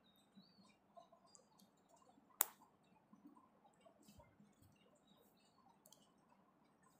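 Small plastic Lego pieces being handled and pressed together: one sharp click a little over two seconds in, among faint light clicks and ticks, the rest near silence.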